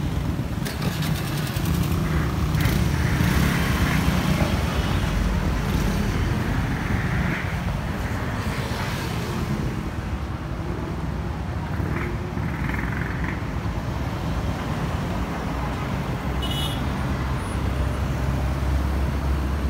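Street ambience with motor traffic: vehicle engines passing close by over a steady low rumble, with a short high-pitched sound about three quarters of the way in.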